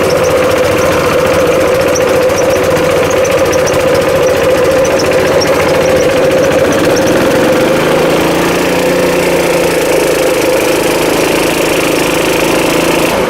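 Honda GX160 single-cylinder four-stroke engine running steadily on a gas-powered air compressor, driving the pump. About eight seconds in, its sound shifts as the lower tones change.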